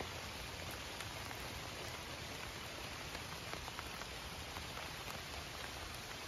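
Steady rain falling: an even hiss with scattered light drop ticks.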